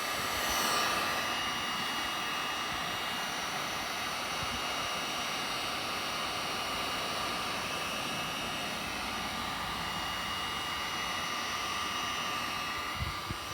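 Electric heat gun blowing steadily, a fan noise with a few steady whining tones, as it heats a scratched plastic boat hull to melt the scratches smooth.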